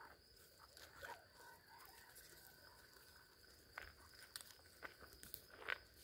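Faint footsteps crunching on gravel, with scattered sharp clicks, the loudest coming about four to six seconds in. Under them, night insects keep up a steady high-pitched chirring.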